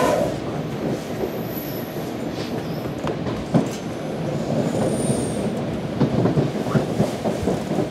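Running noise heard inside a NJ Transit Multilevel II passenger coach: a steady rumble of the car on the rails, with a few sharp clicks and two brief faint high-pitched squeals from the wheels.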